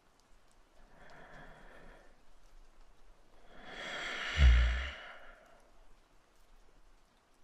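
A man's slow, close-miked breathing: a soft breath in about a second in, then a long sigh a few seconds later whose breath puffs into the microphone with a low thump.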